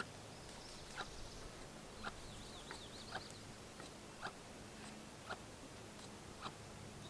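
Chainsaw primer bulb being pressed over and over, a short soft click or squish about once a second, around eight presses. The bulb is slow to fill with fuel.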